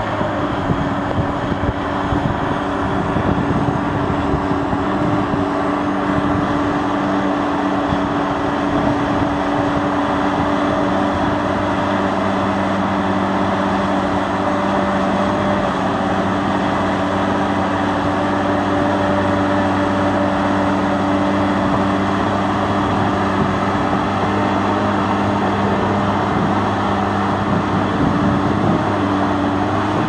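Case 1650M LGP crawler bulldozer working, its diesel engine running steadily under load at a constant note while it pushes heavy wet soil.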